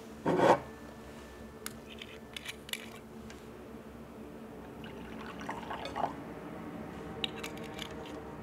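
Red wine poured from a bottle into a wine glass, with light clinks and clicks of glass and bottle. A short loud thump about half a second in is the loudest sound.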